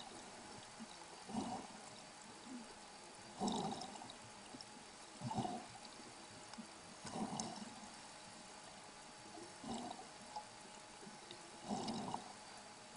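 Water swishing and gurgling in short bursts every second or two, heard underwater, as swimmers kick with fins just below the surface.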